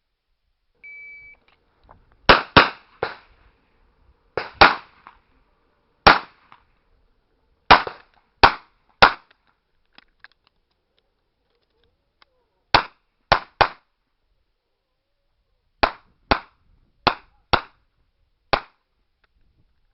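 A shot-timer beep, one short steady tone about a second in, then a revolver firing about seventeen shots in quick pairs and triplets, with a pause of about three and a half seconds midway through the string.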